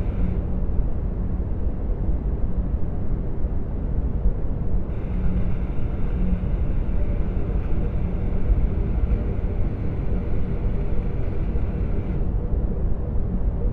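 Sound-designed sci-fi ambience of a Venator-class star destroyer's bridge travelling through hyperspace: a steady, deep rumble of the ship. A fainter high hiss joins about five seconds in and drops away near the end.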